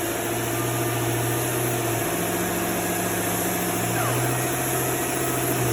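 Dual-action (DA) sander with 600-grit paper running on primer surfacer: a steady drone over a hiss. Its pitch steps up about two seconds in and drops back about two seconds later.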